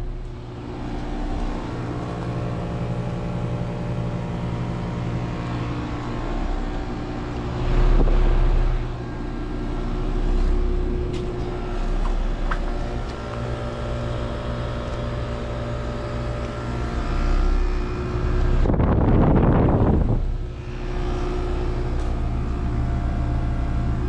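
2011 Bryant Evolution heat pump outdoor units running, the compressor and condenser fan giving a steady hum of several tones. Two bursts of wind noise on the microphone come about 8 and 19 seconds in.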